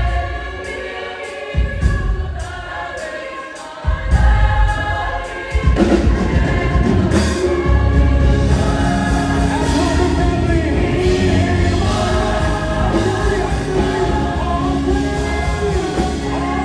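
Choir singing a worship song with musical accompaniment. The deep low end drops away for a couple of seconds and comes back in strongly about four seconds in.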